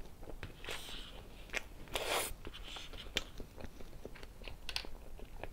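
Close-miked mouth sounds of eating soft whipped-cream layer cake: wet chewing and smacking with scattered sharp clicks. The longest, loudest wet noise comes about two seconds in.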